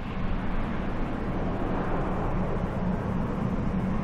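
Airbus A400M Atlas, a four-engine turboprop military transport, flying low and approaching, its propellers giving a steady drone.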